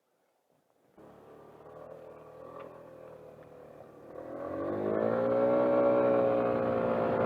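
Motorcycle engine starting up about a second in and running, then revving up and holding at a higher, louder engine speed.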